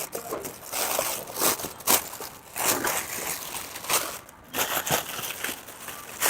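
Plastic bag rustling and crinkling in irregular bursts as food is packed into it.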